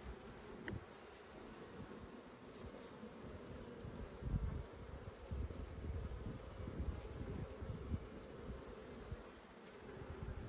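Honeybees buzzing around an opened nucleus hive, a faint steady hum, with irregular low rumbling underneath.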